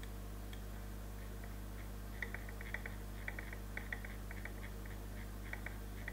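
Computer mouse scroll wheel ticking in quick, irregular runs of clicks from about two seconds in, over a steady low hum.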